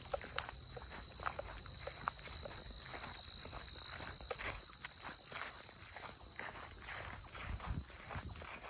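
Crickets chirring in a steady high-pitched chorus, with footsteps crunching along the trail at a walking pace. A few sharp ticks come in the first two seconds.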